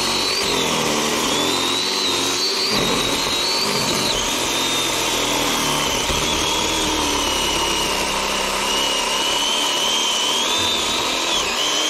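Cordless power tool's electric motor running continuously as it cuts brush. Its high whine sags in pitch under load, partly recovering at times and dropping lower from about four seconds in.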